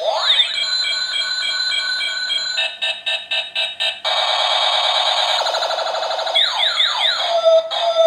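Electronic sound effects from a battery-powered toy shotgun. Rising zaps open it, followed by a fast pulsing beep, a steady warbling alarm-like tone, and then several falling sweeps into a held tone, all thin and high-pitched from a small speaker.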